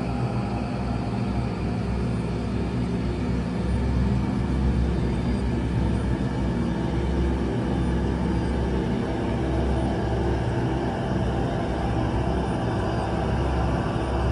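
Horror-style ambient drone: a steady low rumble under layered sustained tones, with no breaks or sudden hits.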